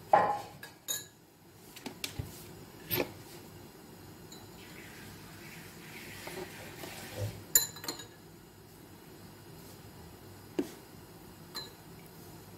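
A steel spoon clinking against a glass dessert bowl, with kitchenware being set down: a series of separate sharp clinks and knocks, the loudest at the very start and a quick pair a little past halfway.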